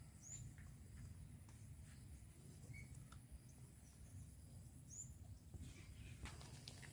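Near silence: faint outdoor background with a few short, faint bird chirps.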